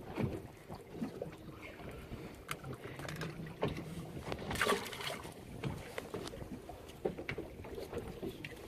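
Wind and water noise aboard a fishing boat, with scattered knocks and clatter on deck and a louder rush of noise about halfway through.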